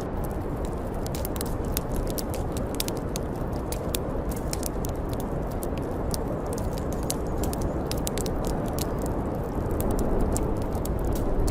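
Wood fire crackling with frequent, irregular sharp pops over a steady low rush of blizzard wind.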